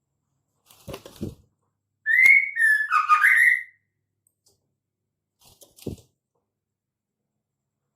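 Female white-rumped shama calling: one short phrase of whistled notes that glide up and down, lasting about a second and a half. It is framed by a few soft knocks before and after.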